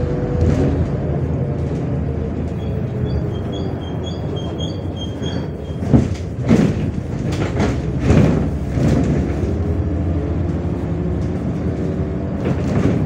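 MAZ 105.465 city bus heard from inside, its engine running steadily. A quick run of short, high electronic beeps comes from about two and a half to five and a half seconds in, then several loud knocks and rattles between about six and nine seconds in.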